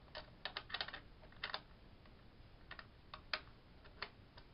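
Irregular light clicks and taps from hard objects being handled, a quick cluster in the first second, then scattered single clicks.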